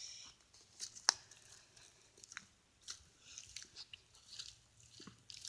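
Faint, irregular crunching and rustling of footsteps on a dry hiking trail, with one sharp click about a second in.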